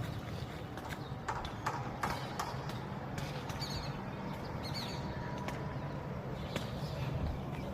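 A steady low engine hum with irregular sharp clicks and knocks over it.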